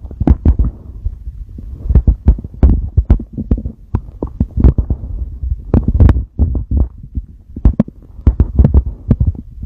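A man's stomach growling: low rumbling gurgles broken by many quick, irregular pops.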